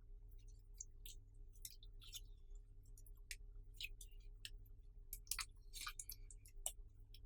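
Slime being squished and kneaded by hand, making faint, irregular sticky clicks and small pops, thickest a little past the middle.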